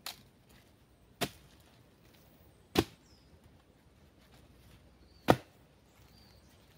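Three separate sharp chopping blows on wood, spaced well apart, the last the loudest.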